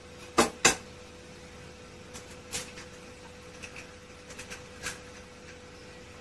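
Kitchen utensils and containers being handled: two sharp clicks about half a second in, then scattered lighter clicks and taps, over a faint steady hum.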